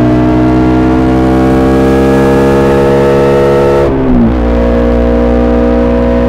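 KTM Duke 200's single-cylinder engine through an SC-Project SC1-R exhaust, pulling under load with the revs climbing slowly. About four seconds in it shifts up: the pitch drops sharply, then it carries on pulling at a lower note.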